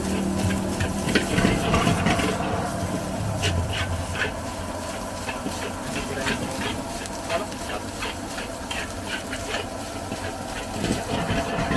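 Long metal spatula scraping and clinking against a large steel wok as fried rice is stir-fried, in irregular strokes a few times a second, over a steady hiss of sizzling rice and steam.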